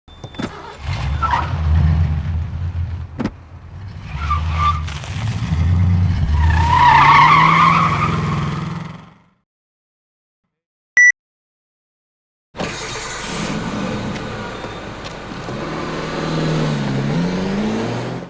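Two separate car-engine sound-effect clips with a short high beep between them. In the first, an engine runs and revs, its pitch rising, with a high squeal near the middle, before it cuts off about nine seconds in. After the beep, a second engine runs steadily, its pitch dipping and rising again near the end.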